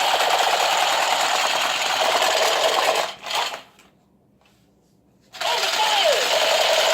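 Battery-powered toy SCAR assault rifle firing: a fast, steady mechanical rattle from its vibration and recoil motors, mixed with its electronic shooting sound. It cuts out about three seconds in, gives a short burst, then starts again about a second and a half later.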